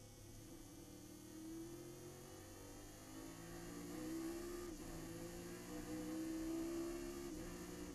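Chevrolet Nova race car's engine heard from inside the cockpit, pulling hard out of a corner: a muffled hum that climbs in pitch, drops back briefly as it shifts up about five seconds in and again near the end.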